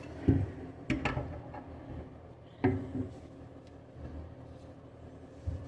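A wrench turning a nut on a plumbing fitting, giving a few sharp, irregularly spaced clicks and knocks of metal on metal.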